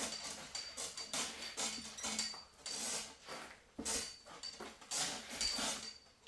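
Repeated hand rubbing strokes on a wet clear-coated car panel, wiping off or sanding through the sanding slop, an irregular scuffing with a faint high squeak in some strokes.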